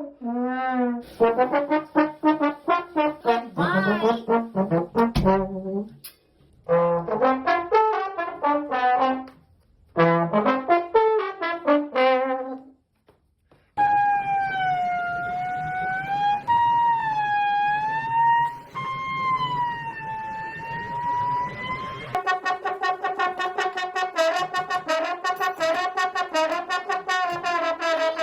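Trumpet-like brass horn tones played as a string of short, wavering phrases with brief pauses between them, then one long wobbling held note, then quick repeated notes near the end.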